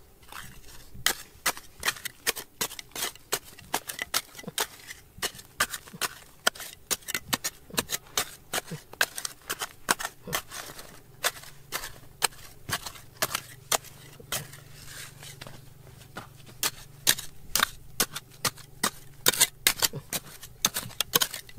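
Rapid, irregular sharp clicks and taps, several a second, with the loudest ones near the end; a faint low hum runs underneath through the second half.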